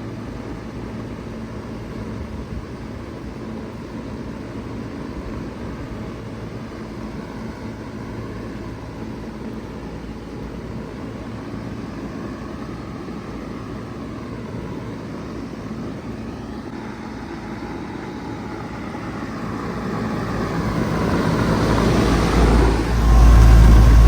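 2021 Bard 2-ton wall-hung heat pump starting up in cool mode: a steady hum and hiss, then about 20 seconds in the sound builds and grows much louder, with a heavy low rumble near the end.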